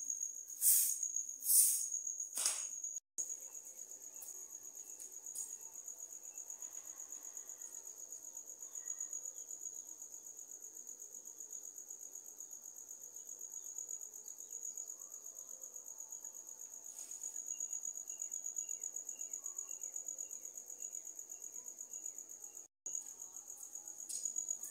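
A short grass broom sweeps a concrete floor in three quick strokes, then a steady high trill of crickets runs on over faint rural background noise.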